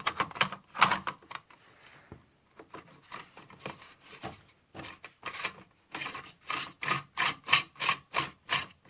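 The tool-free tightening knob on a Brücke battery chainsaw's side cover being turned by hand to clamp the bar and cover plate: a series of short scraping strokes. They come closer together about halfway through, at roughly three a second.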